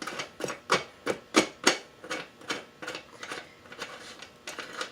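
Ratchet wrench clicking in quick, even strokes, about three to four clicks a second, growing fainter near the end, as a nut on the ATV's wheel hub is worked.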